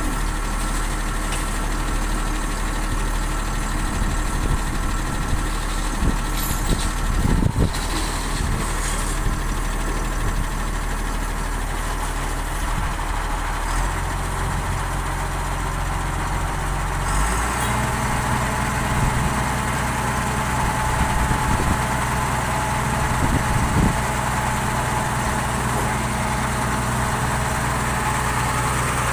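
Diesel engine of a mini excavator running steadily. Its note steps to a different engine speed about halfway through and again a few seconds later, with a heavy metal clunk early on.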